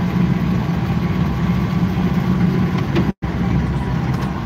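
Stock UAZ's engine running steadily at low speed, heard inside the cabin as an even low hum. The sound cuts out completely for a split second about three seconds in.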